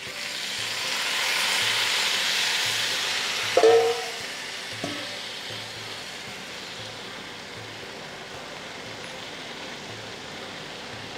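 Hot vermicelli kunafa in an aluminium pan sizzling as cooled sugar syrup is poured onto it; the hiss swells over the first two seconds, then slowly dies down. A ringing metal clink, the loudest sound, comes a few seconds in, with a fainter click about a second later.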